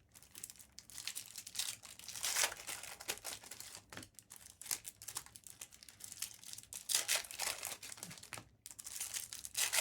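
Trading card pack wrappers crinkling and tearing as packs are opened and cards handled, in irregular bursts of rustling, loudest about two and a half seconds in and again about seven seconds in.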